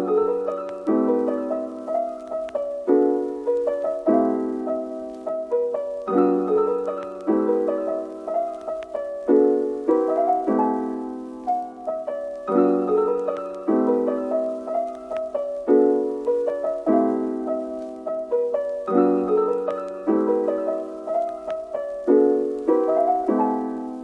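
Background music: a soft piano or electric-piano melody in repeating chords, each chord struck and fading, at a slow steady pace.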